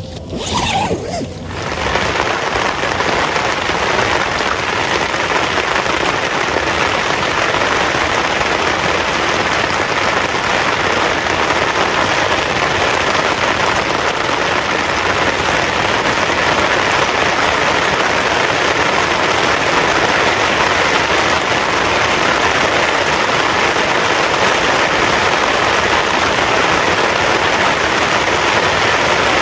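Heavy rain pouring down steadily, a dense even hiss that swells in over the first two seconds and then holds.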